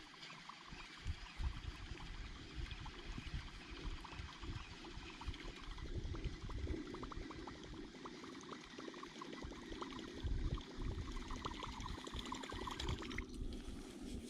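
Water lapping, splashing and trickling against a kayak's hull, with many small irregular splashes.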